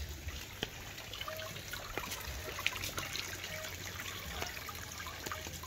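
Water from a hydram pump's half-inch delivery pipe pouring and splashing steadily into a water storage tank, with small scattered splashes.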